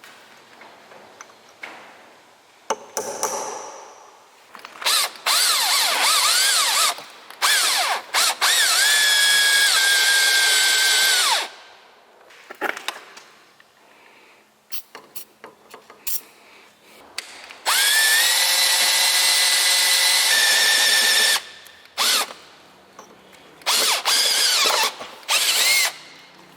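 Handheld power drill boring holes in the dust cover of a track loader's bogie wheel hub, run in several bursts: the motor speeds up to a steady whine and holds for a few seconds at a time, twice for longer runs, with short trigger blips near the end. The holes are drilled to give locking pliers a grip on a dust cover that will not pry out.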